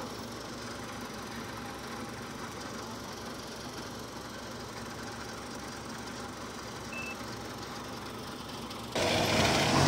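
Diesel engines of tracked rice-field machines, a combine harvester among them, running steadily at idle. About nine seconds in, the engine sound abruptly gets much louder.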